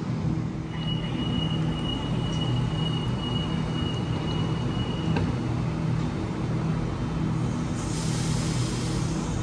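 Stationary Sydney Trains double-deck electric train humming steadily at the platform. A high steady tone sounds for about four seconds and ends in a click, and a hiss of released air comes near the end.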